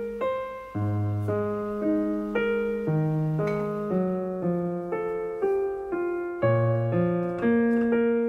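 Background piano music: a gentle melody of single notes at an even pace, about two a second, each note ringing out and fading.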